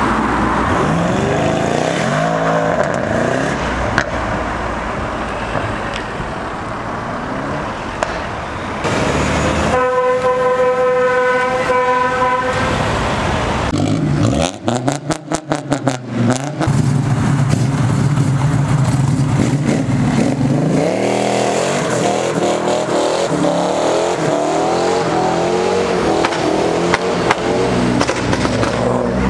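Cars accelerating away one after another, their engines revving up in rising sweeps. About ten seconds in, a car horn sounds steadily for about three seconds, followed by a short run of rapid sharp pops and a steady low engine drone before more hard revving near the end.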